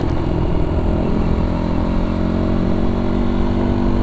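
Gazgas GE 250 enduro motorcycle's 250cc SOHC four-valve engine running under the rider while cruising; its pitch wavers a little in the first second, then holds steady.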